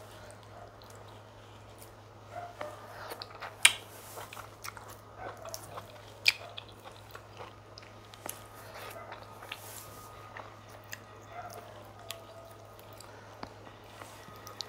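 A person chewing and biting food close to the microphone: chicken pepper soup with fufu. There are wet mouth clicks and crunches throughout, with two sharp, loud clicks about four and six seconds in.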